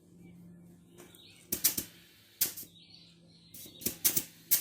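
Bicycle pump being worked to inflate a tyre: about five short, sharp whooshes of air, irregularly spaced, with two coming close together near the end.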